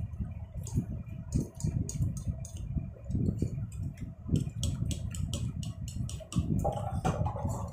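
Chow mein noodles being eaten fast with forks: chewing and mouth sounds with many small sharp clicks, and forks working against the plates.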